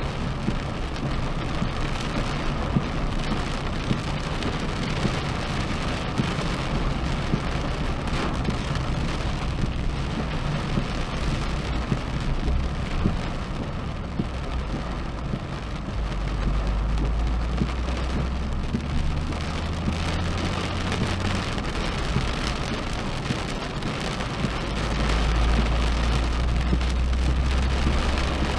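Rain pattering on the windshield and roof of a moving Nissan 370Z Nismo, heard inside the cabin, over a low drone of engine and tyres on the wet road. The low drone grows louder about halfway through and again near the end.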